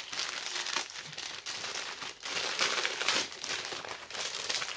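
Gift wrapping paper crinkling and rustling as a present is unwrapped by hand, in uneven crackles.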